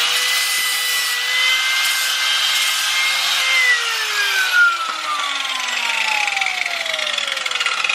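Angle grinder running and cutting steel exhaust tubing, a harsh grinding hiss over the motor's whine. About three and a half seconds in, the whine starts to fall steadily in pitch as the grinder slows.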